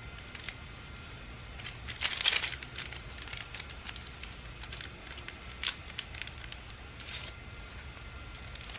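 A small paper sweetener packet being handled and torn open: soft crinkling and tearing, loudest about two seconds in, with a few fainter rustles later.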